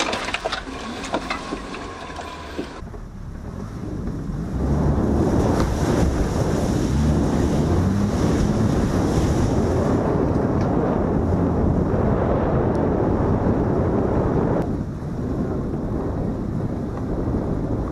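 A 1999 Subaru Forester driving fast along a rough, muddy trail, heard first from inside the cabin with sharp knocks and rattles. About three seconds in, this gives way to a loud rush of wind on the microphone over the car's engine and tyres, easing a little near the end.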